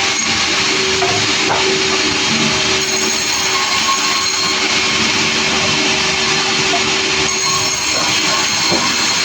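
Sawmill running, its saw cutting through a log: a loud, steady mechanical noise with a constant whine and no break.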